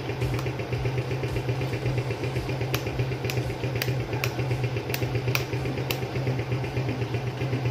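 Suzuki Smash motorcycle's single-cylinder four-stroke engine idling steadily in neutral. Several sharp clicks sound over it, most of them in the middle of the stretch.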